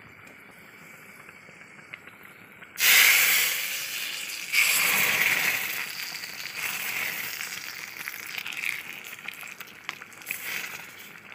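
A ladle of hot tempering oil with cumin and dried red chillies (tadka) is poured into a wok of dal pitthi. A sudden loud hiss comes about three seconds in and a second burst a second and a half later, then the sizzling and crackling fades away.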